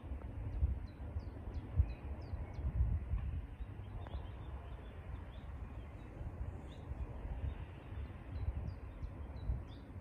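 Wind rumbling and buffeting on the microphone, with a small songbird singing a quick run of high chirps, about four a second, twice: near the start and again near the end.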